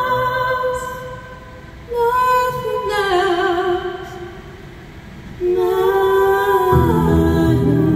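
Music: a woman's voice singing long held notes with vibrato, in three phrases with short pauses between them. Low bass notes come in near the end.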